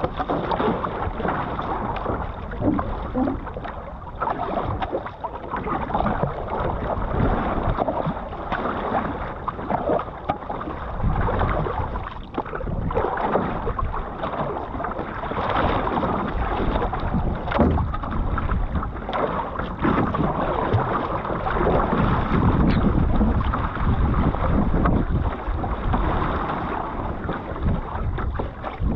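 Water splashing and rushing along the hull of a one-person outrigger canoe as it is paddled with steady strokes, the paddle blade entering and pulling through the water, with wind rumbling on the microphone.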